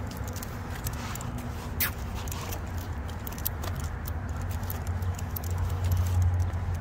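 A Rottweiler's metal chain collar and leash clip jingling and clinking irregularly as the dog walks on the leash, over a steady low rumble.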